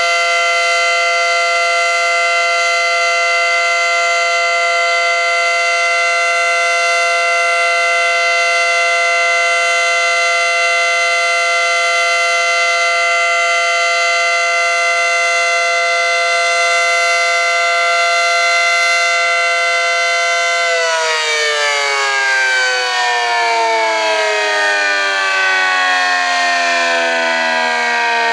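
ACA Screamer dual-tone, 9/12-port outdoor warning siren sounding its steady Alert signal, a held chord of two pitches. About twenty seconds in the tone stops holding and the chord winds down, falling steadily in pitch as the rotor slows.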